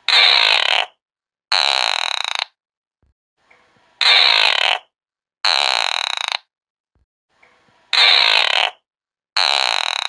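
Frilled-necked lizard hissing: noisy hisses about a second long come in pairs, and the pair repeats about every four seconds.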